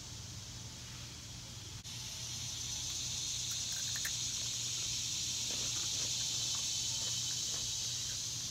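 Steady high-pitched insect chorus droning without a break, briefly cut about two seconds in and then a little louder. Faint crunches of a crisp snack being chewed come through it from the middle on.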